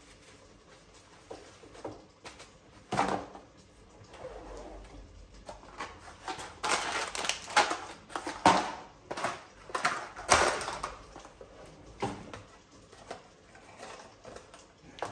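Clear plastic bag crinkling and rustling as it is handled, with light knocks and taps of boxes and packets being set down in a kitchen drawer. The crinkling is loudest and densest in the middle.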